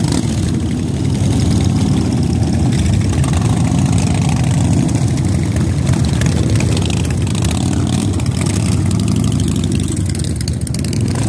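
A large group of motorcycles running at low speed and idle close by, their engines blending into one steady low drone.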